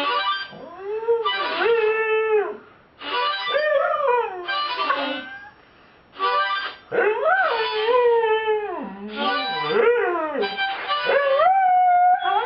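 A harmonica played in short notes with pauses between them while a dog howls along, its howls sliding up and down in pitch, with one long held howl near the end.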